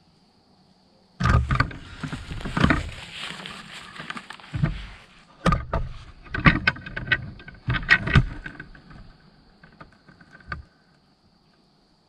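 Rifle and camera gear being handled close to the microphone as the gun is raised to aim: irregular knocks, scrapes and rustles in bunches, starting about a second in and dying away near the end.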